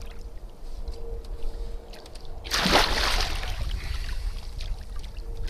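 Water sloshing against the boat as a large alligator gar lies at the surface, with one loud splash about two and a half seconds in as the fish thrashes.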